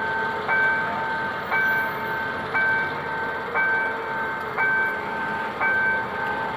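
Level-crossing warning bell ringing about once a second, each ding holding a steady tone until the next. Underneath, a GM G22 diesel locomotive runs low as it pulls a passenger train slowly away.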